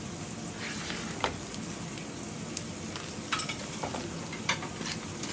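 Pieces of spiced fish cooking with a steady sizzling hiss, broken by about half a dozen short clicks and scrapes of a utensil.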